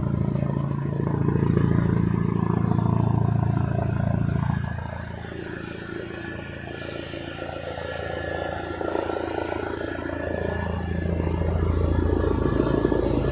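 Police helicopter hovering low overhead, its rotor and engine making a steady low drone. It is loud at first, drops off about five seconds in, then grows louder again toward the end.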